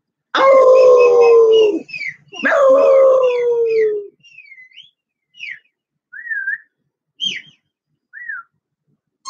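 Puppy howling: two long howls, each slowly falling in pitch, then a string of short, high whining squeaks that slide up and down.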